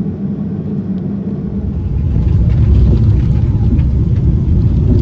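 Airliner cabin noise: a steady low rumble of the aircraft that grows louder about two seconds in.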